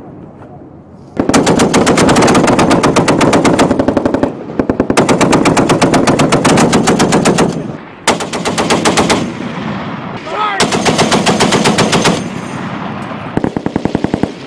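M2 .50-calibre heavy machine gun fire in long bursts of rapid, evenly spaced shots. There are about five bursts with short pauses between them, the first starting about a second in.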